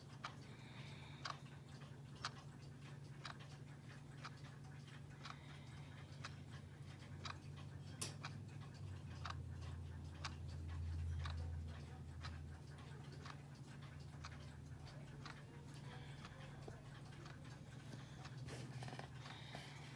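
Quartz battery clock movement ticking about once a second. Under it runs a low hum that swells for a few seconds around the middle.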